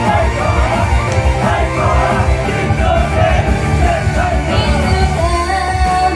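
Loud rock-style idol pop song performed live, with a full band backing track and a wavering sung melody over it.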